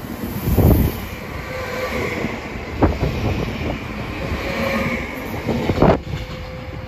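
Stadler KISS double-deck electric multiple unit running past along the platform: steady rolling wheel noise with three heavy clattering thumps from the wheels on the track, and a faint steady whine.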